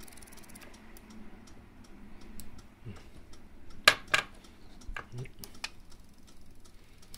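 Light clicks and taps from wire leads being handled and touched to a small DC motor on a workbench, with two sharper clicks close together about four seconds in.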